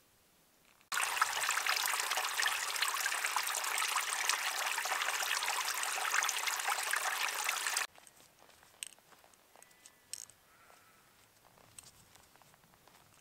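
Running water: a steady rush with a fine crackling texture that starts and stops abruptly, followed by a few faint clicks.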